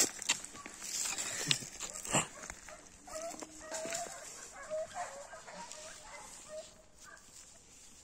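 Faint dog barks, short and repeated at irregular intervals. A few sharp handling clicks come in the first couple of seconds.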